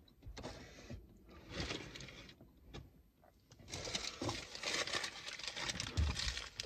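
Plastic bag and takeout packaging rustling and crinkling as they are handled, in irregular scrapes and small clicks that come thicker in the second half.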